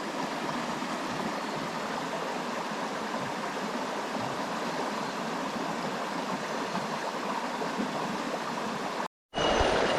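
Small mountain stream flowing, a steady rushing of water. It cuts off abruptly about nine seconds in.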